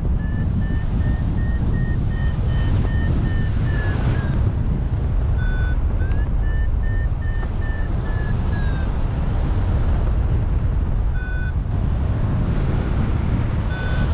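Wind rushing over the microphone in paraglider flight. Over it, a paragliding variometer beeps in runs of quick beeps a few seconds apart, the pitch rising and then falling within each run, the audible signal that the glider is climbing in lift.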